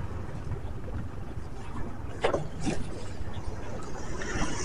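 Steady low rumble of a vehicle on the move, road and wind noise, with two short sharp knocks a little past the middle.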